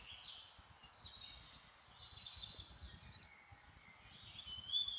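Small birds calling: a run of quick, high overlapping chirps and trills, then a longer, steady high whistle near the end.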